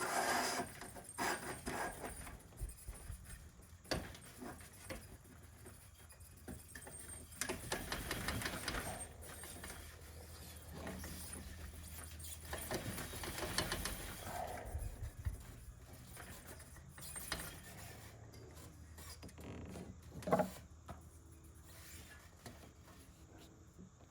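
Scattered clicks, rustles and light knocks from greenhouse door hinge parts being handled and fitted, with a sharper knock about twenty seconds in.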